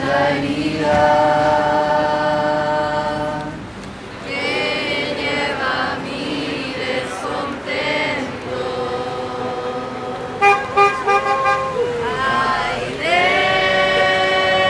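Choir singing slow, sustained chords, each held for several seconds before the next. About ten seconds in there are a few short, loud, sharp accents.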